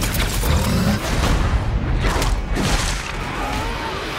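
Action film trailer sound mix: music under deep booms and clusters of sharp impact hits.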